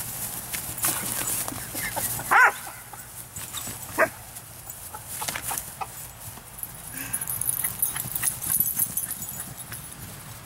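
Young shepherd-type puppy barking in play: a high bark about two seconds in and a shorter, sharper one about four seconds in.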